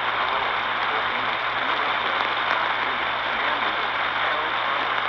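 Steady radio static hiss with a faint low hum, held to the narrow range of a receiver's audio.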